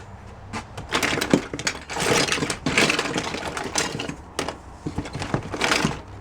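Hands rummaging through a box of small odds and ends, with items clinking and clattering against each other in quick irregular clicks and knocks.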